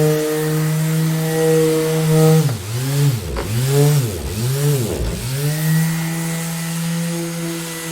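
Orbital sander motor running with a steady whine; in the middle its pitch sags and recovers three or four times in quick succession, then holds steady again.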